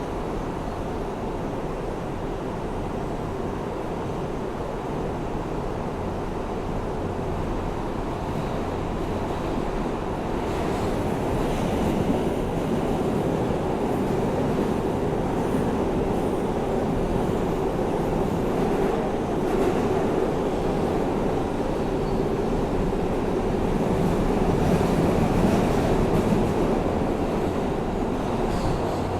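Interior of an R160A-2 New York subway car rolling between stations: steady wheel and track rumble that grows louder about ten seconds in. The car's HVAC is broken.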